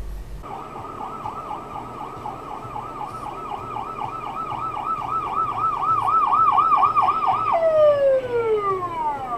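Emergency vehicle siren in a fast yelp, about three to four wails a second, starting suddenly and growing louder, then winding down in a long falling glide near the end.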